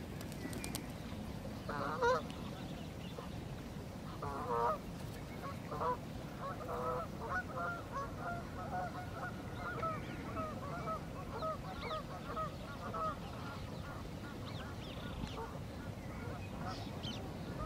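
Geese honking: a few single calls, then a run of short honks at about two or three a second for several seconds, over low wind rumble on the microphone.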